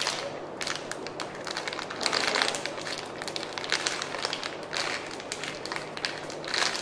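Clear plastic bag around a squishy toy crinkling and crackling as it is handled and turned in the hands, in irregular rustles and crackles.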